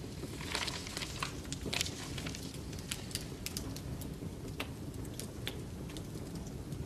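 Fire crackling in a fireplace as letters are burned, with sharp pops and clicks scattered throughout over a steady low rush. Paper rustles as the letters are handled in the first couple of seconds.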